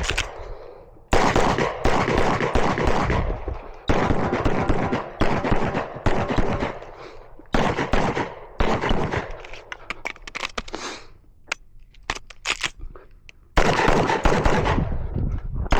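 Pistol shots fired in rapid strings during a practical pistol stage. There are several fast bursts with short pauses between them, and a few spaced single shots in the middle.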